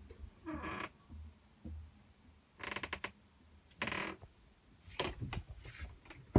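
Creaks and clicks of a camping caravan's wooden cupboard doors and fittings being handled: a short creak about half a second in, then several sharp clicks and rattles about a second apart.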